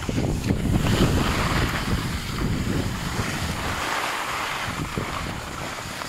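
Wind buffeting a moving skier's microphone, with the hiss of skis sliding over packed snow.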